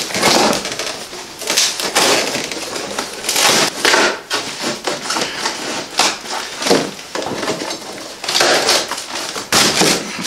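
Cardboard packing being forced, scraped and crumpled out of a shipping crate: loud, irregular rustling and scraping.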